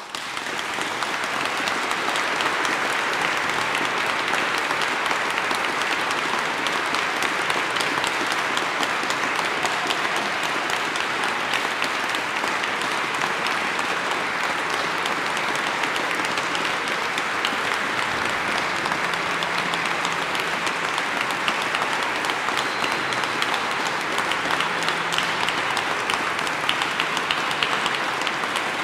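Audience applauding: dense, steady clapping that breaks out suddenly and reaches full strength within about a second, then holds.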